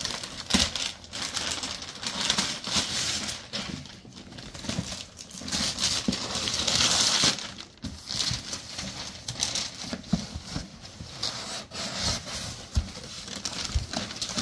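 Gift wrapping paper being ripped off a box and crumpled, with a long tear about six seconds in, followed by cardboard box flaps being opened and tissue paper rustling.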